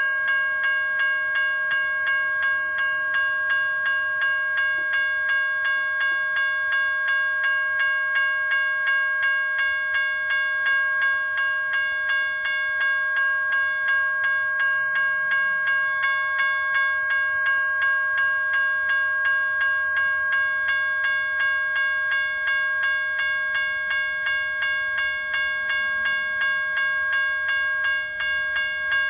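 Railroad grade-crossing warning bell ringing over and over at an even pace, a bright ringing tone with each strike. The crossing is activated for an approaching train.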